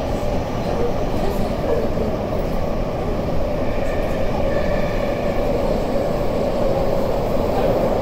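Running noise heard inside a Tokyu 5050 series subway car in a tunnel: a steady, loud rumble of wheels on rail and the drive, with faint higher tones about four to five seconds in.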